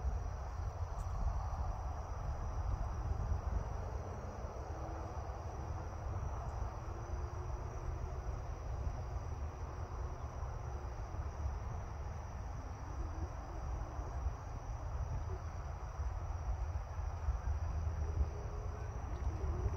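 Crickets chirping steadily in grass, with a low rumble underneath.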